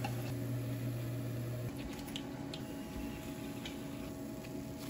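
A low steady kitchen hum that cuts off about two seconds in, then a few light clicks as fried fish pieces are set down on a paper-towel-lined plate.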